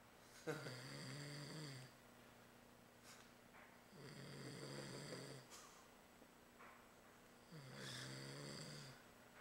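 A sleeping person snoring: three snores, each about a second and a half long and spaced about three and a half seconds apart.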